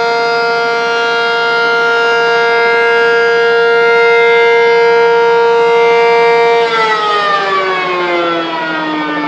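Outdoor civil-defense warning siren sounding a steady, loud tone of several pitches, then, about seven seconds in, sliding down in pitch as it winds down. It is a public alarm sounded over a refinery fire.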